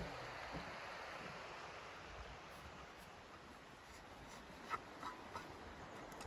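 Faint rushing of a river that fades out over the first few seconds, then a few light clicks and taps as a shovel blade is handled.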